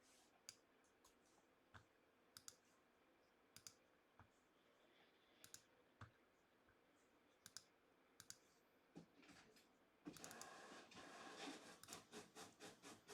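Faint, scattered clicks at a computer, then from about ten seconds in a quick run of typing on a computer keyboard.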